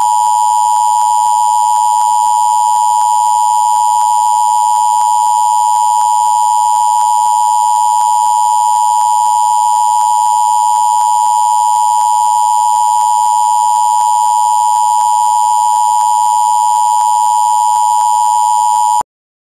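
Emergency Alert System attention signal: a loud, steady two-note tone held without a break, cutting off suddenly shortly before the end. It marks the start of a Required Monthly Test alert.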